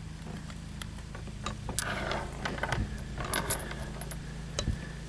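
Light metallic clicks and clinks of .38 Special cartridges and a revolver being handled, as when rounds are loaded into the cylinder, bunched into two flurries with a sharper click near the end, over a low steady hum.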